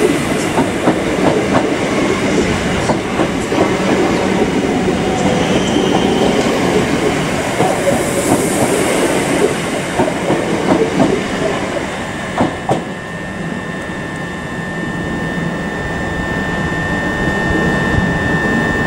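A train moving past, its wheels clattering over the rail joints with many short clicks. About twelve seconds in the clatter eases and a steady high-pitched tone sets in.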